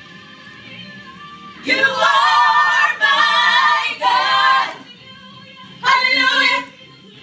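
Gospel worship song: several voices sing three long phrases with wavering, vibrato pitch, separated by quieter held tones.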